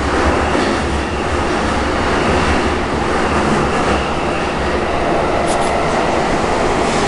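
Cabin running noise of a JR East E233 series electric train in a subway tunnel: a steady rumble of wheels on rail and tunnel roar. Two brief high squeaks come about five and a half seconds in.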